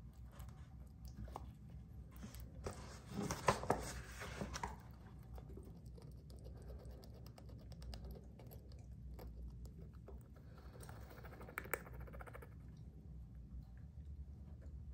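A long-haired hamster gnawing and scratching at the edge of a gap: faint small clicks throughout, with two spells of rapid, scratchy clicking, the louder one about three seconds in and another around eleven seconds.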